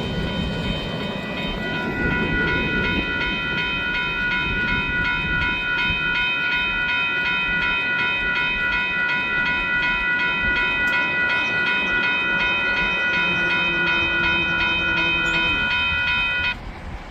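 A train running by, with a steady high chord of several tones held over the rumble that cuts off sharply about sixteen seconds in.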